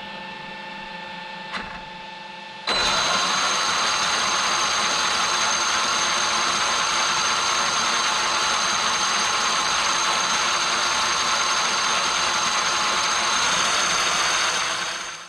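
Traxxas X-Maxx's electric motor driving the pinion, spur gear and cushdrive on the bench: a quieter hum at first, then about three seconds in a sudden jump to a loud, steady whine with gear noise, holding one even pitch until it fades near the end. The even pitch, with no rising and falling, shows the repaired cushdrive running consistently.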